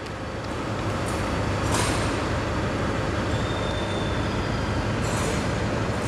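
Steady mechanical rumble with a low hum, and faint brushing noises over it.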